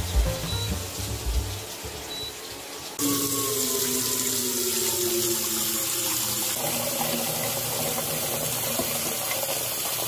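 Soft background music, then about three seconds in a steady stream of water starts pouring into an empty stainless steel cooking pot, with a faint ring that rises in pitch as the pot fills.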